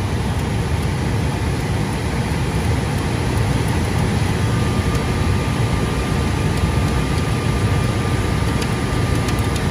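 Loud, steady drone of an IBM System z10 mainframe's cooling blowers, with a thin, steady whine above it. With one motor drive failed, the remaining blower is running at full speed.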